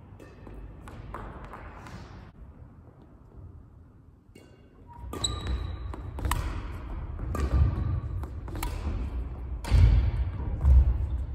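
Badminton rally: rackets smacking the shuttlecock, with the hits ringing on in a large hall, and players' feet thudding on the wooden floor as they jump and lunge. The first few hits are light, and after a short lull the shots and footfalls get much louder and quicker, with the heaviest thuds near the end.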